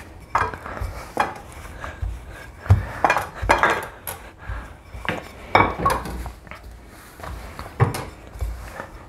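Kitchenware being handled on a counter: irregular knocks and clinks of pans and utensils, about a dozen in all.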